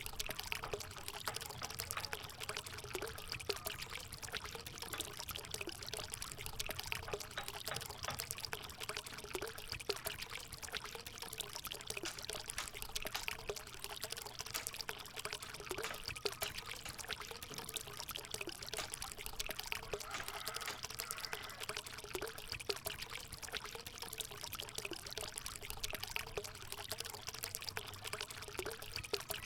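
Water trickling and splashing steadily from a homemade bamboo fountain's spout into its basin.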